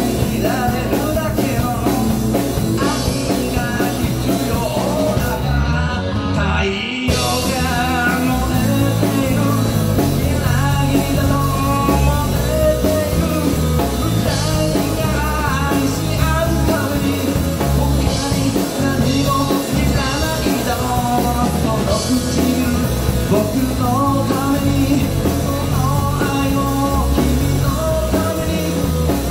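Rock band playing live: electric guitar, electric bass and a drum kit driving a steady rock beat, with a brief break about seven seconds in.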